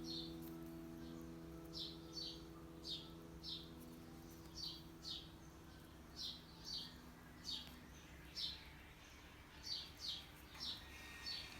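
Small bird chirping: short, high chirps that each drop quickly in pitch, often in pairs, repeating every second or so. A held piano chord fades away under the first few seconds.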